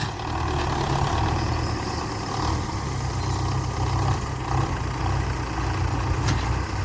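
Tractor engine running steadily at idle, a low even hum.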